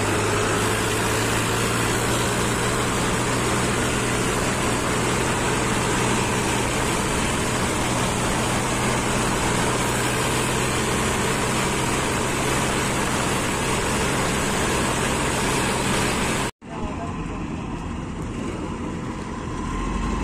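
Tractor engine running steadily at road speed, a constant low drone under heavy wind and road noise heard from the driver's seat. It cuts off suddenly about sixteen seconds in, and a quieter combine harvester engine running takes over.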